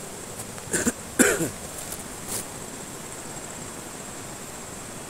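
A man coughs twice in quick succession about a second in, over the steady rush of a fast-flowing river.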